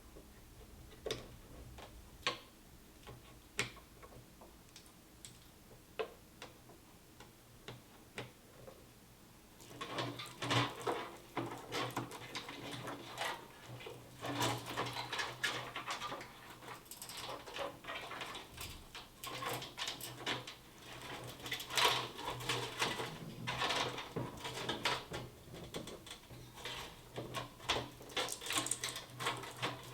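Scattered sharp clicks, then from about ten seconds in a dense run of clicking, tapping and rustling over a low hum: PC parts and packaging being handled during assembly.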